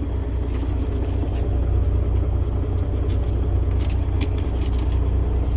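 A vehicle's engine idling steadily, a low even hum, with a few faint ticks and rattles over it.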